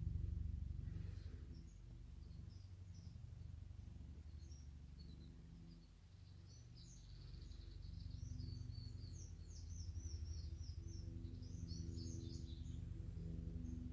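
Écureuil helicopter (Airbus AS350 type) flying at a distance: a low rotor thrum with a steady engine tone, easing off around six seconds in and then growing louder again. Small birds chirp in a quick run through the second half.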